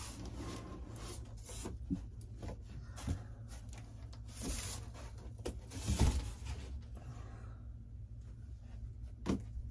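A large cardboard box being slid and lifted out of a bigger cardboard shipping carton: cardboard scraping and rubbing, with scattered knocks and bumps, the loudest about six seconds in.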